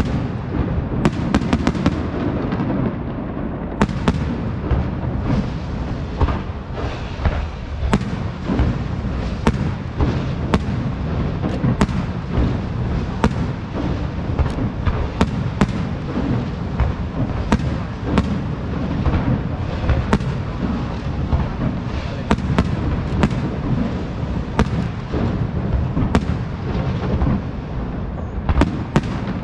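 Large aerial fireworks display: a continuous low rumble of shell bursts, crossed by many sharp bangs and cracks, several a second.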